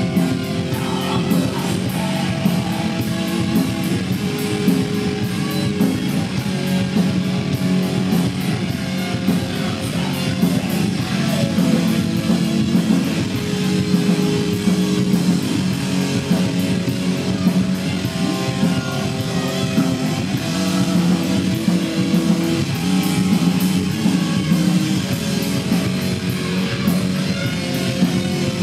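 Heavy metal band playing live and loud: electric guitars over bass guitar and a drum kit.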